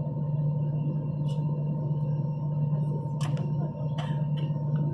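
Steady low hum of an Airbus A320 cabin with a thin high tone over it, and two sharp clicks about three and four seconds in.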